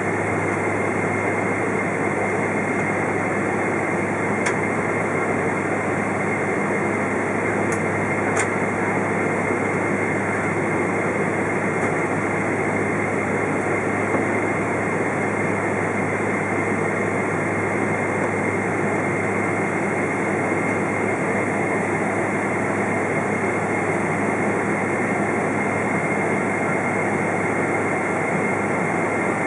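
Cabin noise of a KLM Boeing 777-200 taxiing, its GE90 turbofan engines running at taxi power. It is a steady rushing hum with a constant high whine, heard from inside the cabin.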